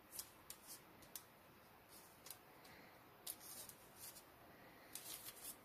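Faint crinkling of parchment paper as fingers press and pat puff pastry on a baking sheet: a string of short, soft rustles, coming thicker near the end.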